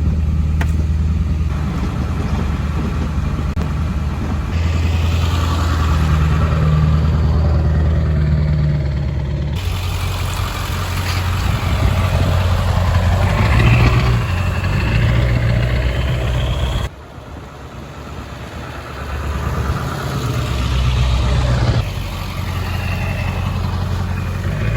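Ford F350 pickup's engine running as the truck drives along dirt forest trails, its pitch rising and falling with the throttle. The sound changes abruptly several times, dropping sharply in level about two-thirds of the way through before building again.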